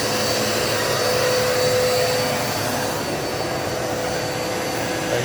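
Dirt Devil Multi-Surface vacuum cleaner running steadily on carpet: a rush of air with a steady motor whine over it. The hiss thins out about three seconds in.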